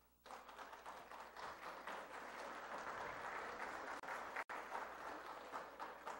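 Faint audience applause. It comes in a moment after the start, holds steady and dies away at the end.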